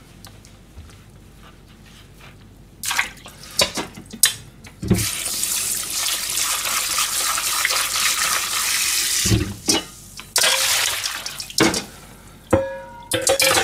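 Kitchen tap running into a stainless steel sink for about four seconds, then again briefly, with knocks and clatter at the sink before, between and after.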